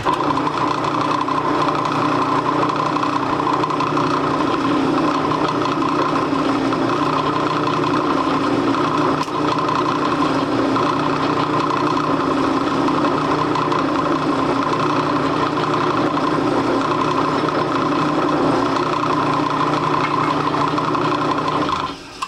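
Drill press running steadily with a deburring tool cutting the burrs off the backs of freshly drilled holes in a metal part. It starts abruptly and stops shortly before the end.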